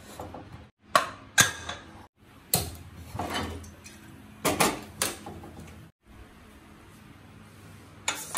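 A string of sharp metal clicks and knocks, about a second apart, from an aluminium pressure cooker being handled on a gas stove. Near the end comes a quick cluster of clicks as the whistle weight is set onto the lid's vent pipe.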